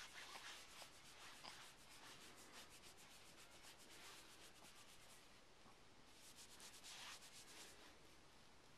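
Near silence with faint fabric rubbing and rustling, stronger in the first few seconds and again about seven seconds in.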